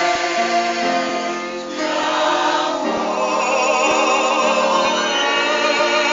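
Choir singing in harmony with keyboard accompaniment, holding long notes with a clear vibrato.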